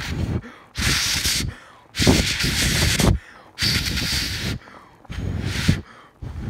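A person blowing hard, breath after breath, onto the rising foam of a pot of macaroni that is boiling over, to knock the foam down. About five gusts come roughly every second and a half, each a rush of air with a deep wind rumble on the phone microphone.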